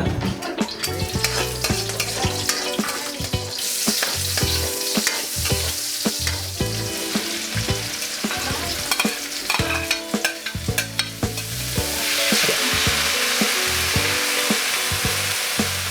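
Heart of coconut being sautéed with sardines in a pan: oil sizzling while a utensil stirs and scrapes, with frequent clicks against the pan. The sizzle swells about four seconds in and again from about twelve seconds.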